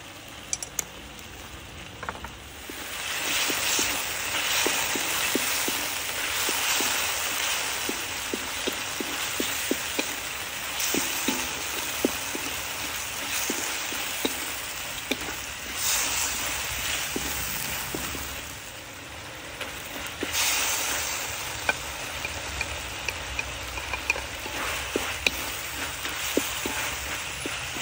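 Chicken sizzling in a hot stainless steel wok, the sizzle swelling about two and a half seconds in as seasoning sauce goes in. A wooden spatula stirs the food, knocking and scraping against the wok in many short clicks.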